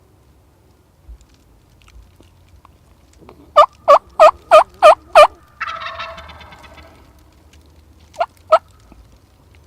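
A series of six loud turkey yelps, about three a second, answered at once by a wild turkey gobbler's rattling gobble. Two more yelp notes come near the end.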